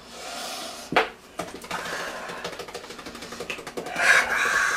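Quick, noisy breaths in and out through the mouth from the burn of a very hot chili-extract sauce, then a burst of laughter near the end.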